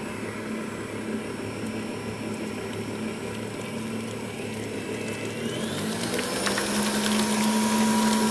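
Kenwood Cooking Chef stand mixer motor running as it beats eggs into choux pastry dough. Its pitch rises about six seconds in as the mixer speeds up, then it holds steady at the higher speed.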